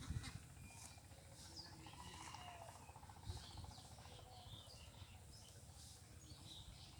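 Faint outdoor ambience of small birds chirping, with many short, scattered high calls, over a low rumble.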